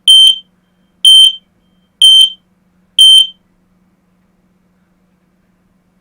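Wireless interlinked smoke alarm sounding four loud, high-pitched beeps about a second apart, then stopping. It was set off through its wireless interlink by the test button being pressed on the linked alarm downstairs, without being touched itself.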